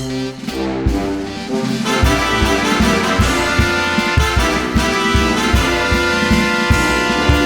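Background music: an upbeat jazzy piece with brass and a steady beat.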